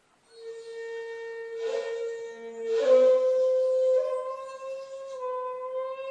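Handmade 2.8 jinashi shakuhachi playing solo honkyoku: a long held note begins after a moment of silence, with two breathy swells of air noise and a small step up in pitch partway through, then slight bends.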